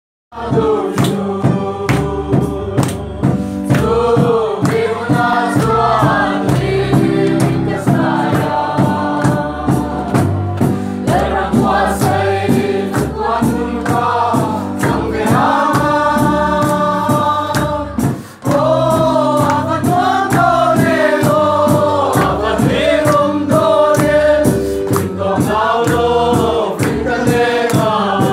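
A congregation singing a hymn together over a steady percussive beat; the sound drops out briefly about eighteen seconds in.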